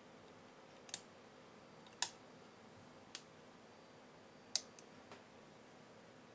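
A few sharp little clicks from a homemade PIC-microcontroller timer board as its DIP switches are set with tweezers and its push button is pressed to start the timer. The loudest click comes about four and a half seconds in, followed by two faint ones.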